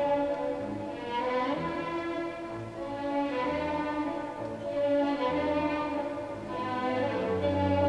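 Orchestral music led by bowed strings, violins and cellos, playing long held notes that swell and change every second or so.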